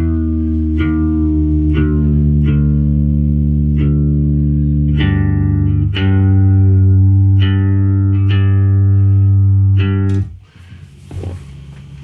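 Electric bass guitar played through an Earthquaker Devices Astral Destiny octave reverb pedal: plucked notes ring on and overlap as the line steps through a few pitches. The playing stops abruptly about ten seconds in.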